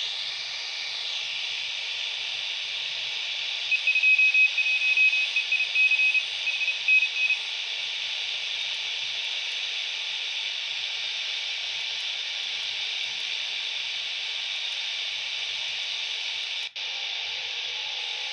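Shortwave receiver hiss from a Quansheng UV-K6 handheld radio tuned to the 10 m band, with a high-pitched keyed Morse (CW) tone sounding in dots and dashes from about four to seven seconds in. Near the end the audio cuts out for an instant as the frequency is changed.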